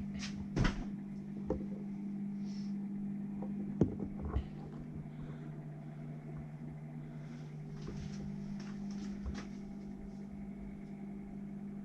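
A steady low hum with a few scattered knocks and clicks, the loudest near the start and about four seconds in.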